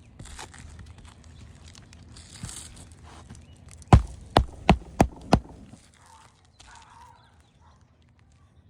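A hammer driving a roofing nail into an asphalt shingle by hand: five quick blows about a third of a second apart, starting about four seconds in, after some rustling and scraping of the shingles.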